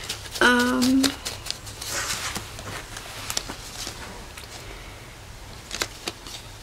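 Paper handling: banknotes being squared in a stack and paper envelopes being flipped through, giving soft rustles and a few light taps. A short held vocal 'hmm' comes about half a second in.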